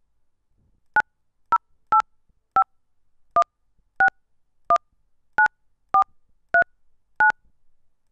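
Xten softphone keypad sending DTMF touch-tones as a phone number is dialed: eleven short two-tone beeps, one per digit, spaced roughly half a second to under a second apart.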